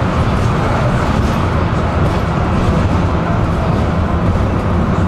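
Tram running along its tracks: a steady rumble of wheels on rails with a low motor hum.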